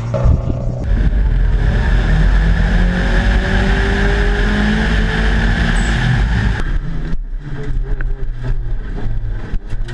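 Subaru Impreza WRX STI Spec C's turbocharged flat-four engine pulling hard at racing speed, heard from a camera outside the car as a dense steady note. About two-thirds of the way through, the sound switches to inside the cabin, where the engine note rises and falls in quick surges with sharp clicks.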